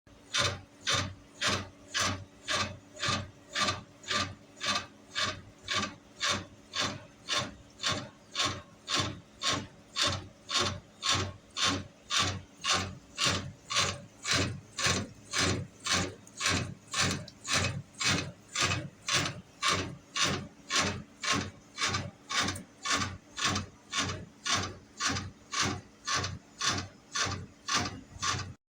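Steady, even rasping strokes, about two a second, with the scrape of a tool worked back and forth.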